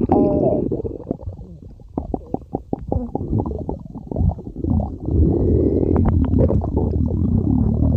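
Human stomach growling and gurgling: a low rumble at first, then a quieter stretch of quick popping gurgles, then continuous low rumbling again from about five seconds in.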